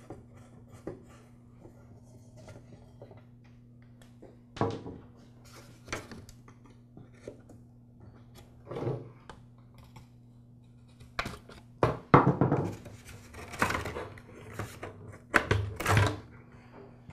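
Scattered clicks and knocks of a screwdriver and hard plastic as the guard of a Black and Decker CST1200 string trimmer is unscrewed and worked off its plastic tabs. The knocks come more often in the second half, over a low steady hum.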